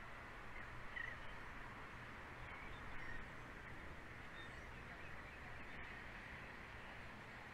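Steady outdoor background hiss with a low electrical hum from the nest-cam microphone, and a few faint, brief bird chirps about one and three seconds in.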